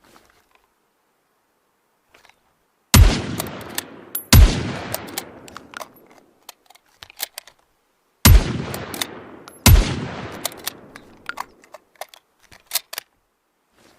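Makeshift rifle gunshot sound effect: two loud shots about a second and a half apart, each with a long echoing tail, followed by a run of small metallic clicks; the whole sequence plays twice.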